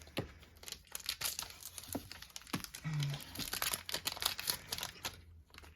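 Foil trading-card pack wrapper crinkling and crumpling in the hands, with many quick crackles and some tearing.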